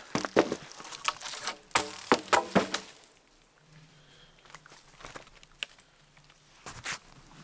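Dry bark and dead wood cracking and crunching, a quick run of sharp snaps in the first three seconds, then mostly quiet with one more crackle near the end.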